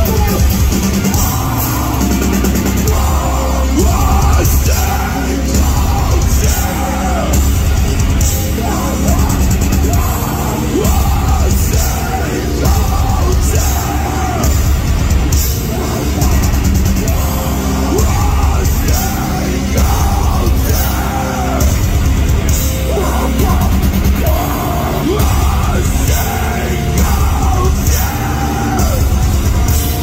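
Loud live metallic hardcore band: distorted guitars, bass and drums playing continuously, with the singer screaming over them.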